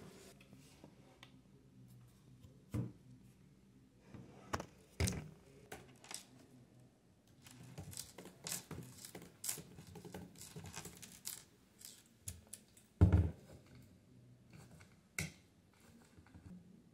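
Small handling noises at a desk: scattered taps and clicks, and a quick run of laptop keyboard clicks in the middle. One sharp knock about thirteen seconds in.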